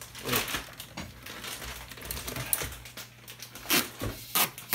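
Plastic toner cartridge being handled and seated in a colour laser printer's cartridge drawer: plastic crinkling and rubbing, with a sharp knock early and a few sharp clacks near the end.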